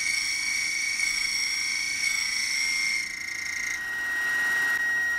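Spiral carbide end mill on a mini mill cutting brass, a steady high-pitched squeal as the cutter struggles pushing into a corner. About three seconds in the sound thins out and the main tone steps slightly lower, still steady.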